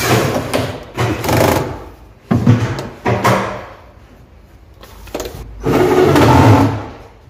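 Cordless drill driving screws into a metal ball-bearing drawer slide in several short runs over the first few seconds. About six seconds in, a longer rattling run as the drawer slides along its metal runners.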